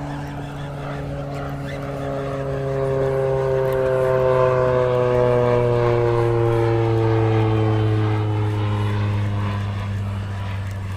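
Propeller-driven airplane flying over. Its engine drone swells to loudest about halfway through, then fades as its pitch slowly falls while it passes, over a steady low drone underneath.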